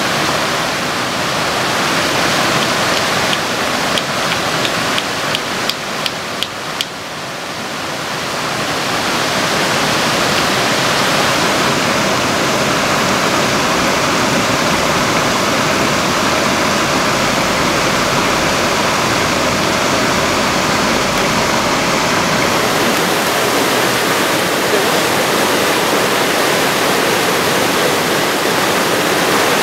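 A loud, steady rushing noise like a waterfall or fast stream. A run of sharp clicks over it dies away in the first seven seconds.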